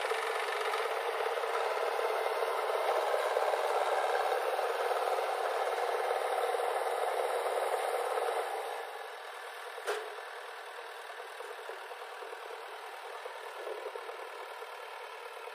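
Diesel engines of a JCB 3DX backhoe loader and a tractor running, with rattling and scraping from the loader at work. The noise is heavier for about the first eight seconds, then eases off, with a single sharp knock about ten seconds in.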